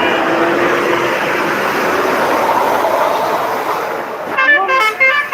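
A bus passes close with a steady rush of engine and road noise. Near the end, a multi-tone telolet (basuri) bus horn plays a quick tune of short notes that change pitch.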